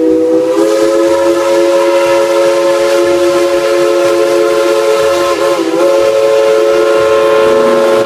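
Steam locomotive whistle blowing one long chime-like blast of several notes together over a hiss of steam. The pitch wavers briefly about five and a half seconds in.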